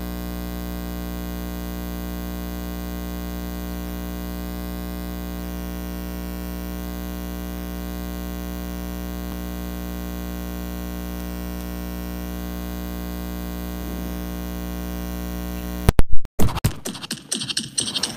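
Steady electrical buzz from the sound system: a constant hum with many overtones. It cuts off abruptly about sixteen seconds in with a few loud pops and clicks, followed by irregular knocks and rustles close to the microphone.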